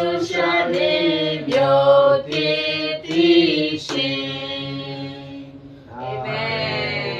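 Small mixed group of men and women singing a hymn in Burmese together, unaccompanied. The singing breaks briefly about five and a half seconds in, then resumes on one long held note.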